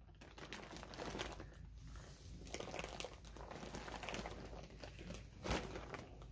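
Plastic bags crinkling as a clear bag packed with yarn balls is gripped and shifted: irregular, fairly quiet crackling, with a sharper rustle about five and a half seconds in.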